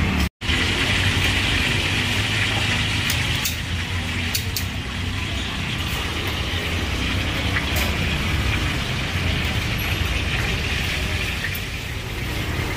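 Steady background din of an eatery open to the street: a constant traffic rumble under a hiss, with a few light clicks. The sound cuts out for an instant near the start.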